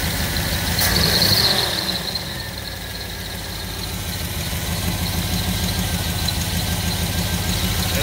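Carbureted car engine idling steadily on its first run after a timing chain replacement, with a low, even rhythm. It swells briefly louder about a second in.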